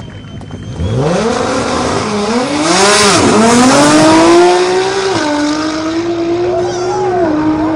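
Turbocharged Nissan GT-R's twin-turbo V6 launching hard off the drag-strip start line about a second in and accelerating flat out. The engine note climbs and drops back at each upshift, about four times, and is loudest around the middle as the car pulls away.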